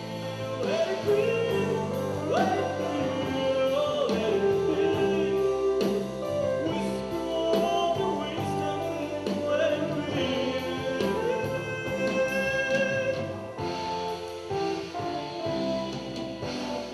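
Live rock band playing: a sung lead vocal over drums and electric guitar.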